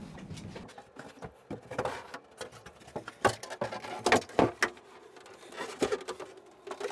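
Scattered light knocks and clicks, about seven of them, from the bathtub and tools being handled and shifted.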